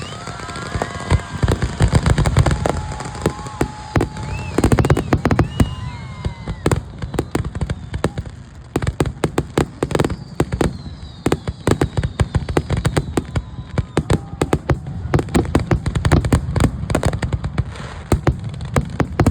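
Aerial fireworks display: deep booms of bursting shells in the first few seconds, then a dense, rapid barrage of sharp bangs and crackles, several a second, typical of a fireworks finale.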